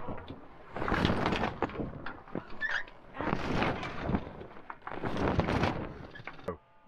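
Wind and sea rushing on the deck of a sailing yacht under way in a freshening breeze, surging about every two seconds. It cuts off suddenly near the end.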